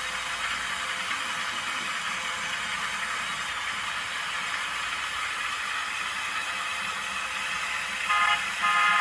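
Motors and gear trains of a Lego Technic Cat D11 bulldozer set whirring steadily as it runs on its tracks. Near the end, a short horn toot and then a second, longer one begin.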